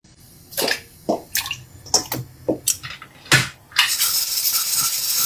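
Close-miked wet mouth sounds of eating: a string of sharp smacks and squishy clicks, then a steady hiss that starts about four seconds in.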